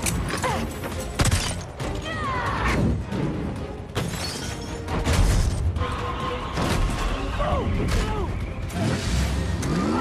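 Action-film soundtrack: dramatic music mixed with repeated heavy thuds, crashes and impacts from a fight and tumbling cargo.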